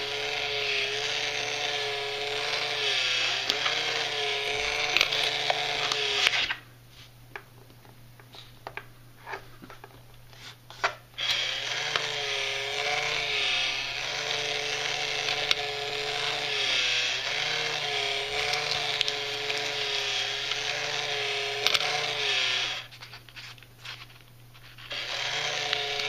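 Face Bank coin-eating money box's small battery-powered motor whirring as the mouth chews, its pitch wavering up and down with each chewing stroke. It stops about six seconds in, leaving a few small clicks, runs again from about eleven seconds to about twenty-three seconds, then stops briefly and starts again near the end.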